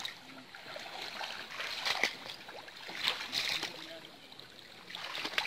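Shallow pond water splashing and sloshing in several short bursts as men wade through it and drag a fine-mesh mosquito net.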